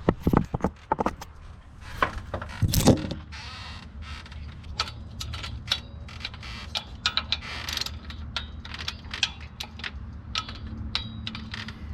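Socket wrench ratcheting in short runs of clicks, with metal tools knocking and clinking, while bolts on the engine's front accessory parts are tightened to 18 foot-pounds. There are a few louder knocks in the first three seconds.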